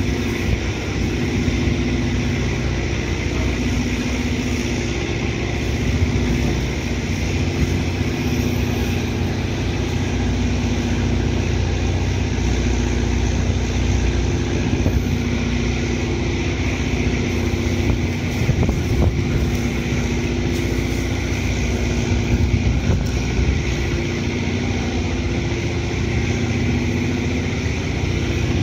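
Large passenger ferry Salvia Maru's engines and propellers running steadily as it manoeuvres in to berth. It makes a continuous hum with two steady tones over a low rumble.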